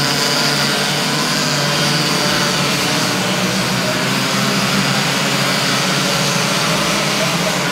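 A pack of 60cc two-stroke racing karts running at speed: a steady, dense buzz of several small engines.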